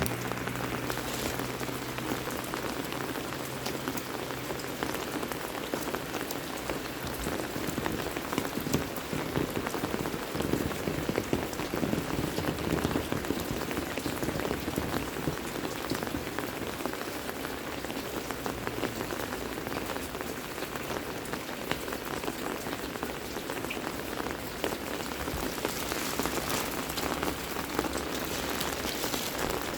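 Heavy rain falling steadily: an even hiss with many separate drops heard striking.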